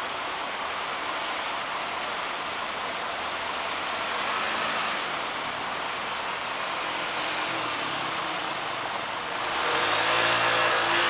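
Steady road traffic noise, with passing vehicles' engines; the loudest one passes near the end.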